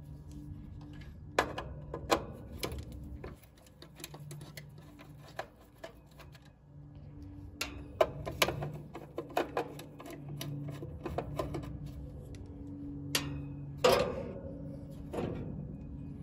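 Irregular sharp clicks and metallic clatter of hand tools working on parts in an air-conditioning condenser, with a low hum that comes and goes behind them.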